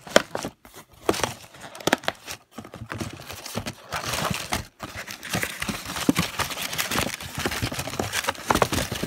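Hands handling and opening a cardboard takeout box: a string of knocks, scrapes and rustles of the cardboard.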